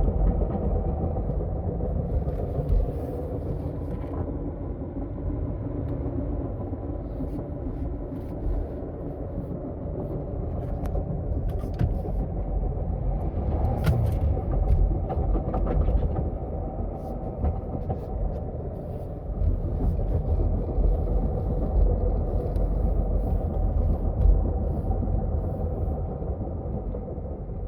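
2017 Subaru Impreza's TR580 CVT grinding with a steady whine over road rumble while driving: the noise of a failing secondary pulley (variator) bearing.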